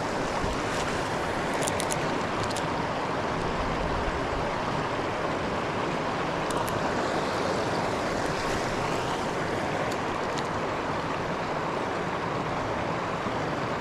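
River rapids running: a steady, noisy wash of moving water over rocks.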